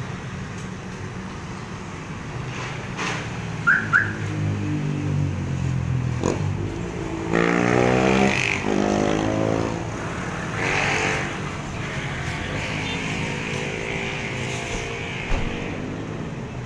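Road traffic passing close by: motorcycle and car engines running and changing pitch as they go past, the busiest stretch about halfway through. Two short high chirps come about four seconds in.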